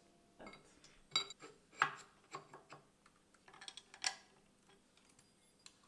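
Hand-crank leather splitting machine being handled and adjusted: scattered metallic clicks and light clinks, irregular rather than a steady cranking rhythm. The sharpest come about a second in, near two seconds and about four seconds in.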